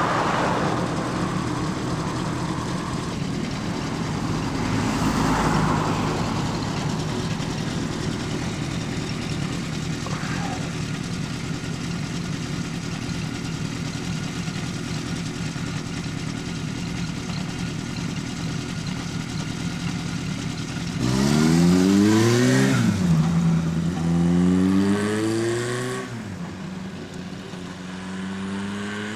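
Honda CB400F air-cooled inline-four running through a Yoshimura machine-bent four-into-one exhaust: a long steady idle, then several quick throttle blips near the end, the pitch rising and falling with each.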